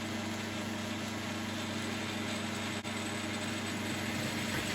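9-inch South Bend lathe running steadily on automatic feed, its motor and drive giving an even hum while a large boring head bores aluminium plate.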